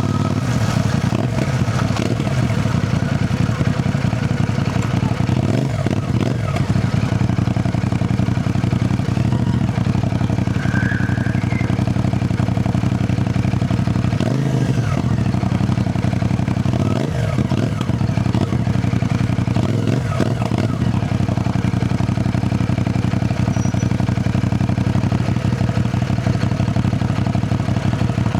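CFMoto 450NK's parallel-twin engine running steadily under way at an even pitch, with a few brief dips in the engine note.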